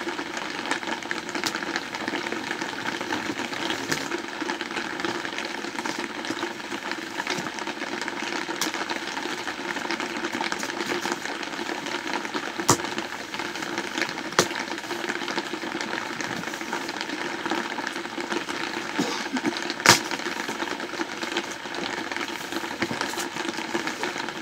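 Heavy rain falling steadily on a yurt's roof, a continuous hiss. A few sharp clicks and rustles come from a cardboard box being slit open and its flaps handled, the loudest about halfway through and again a little past two-thirds of the way.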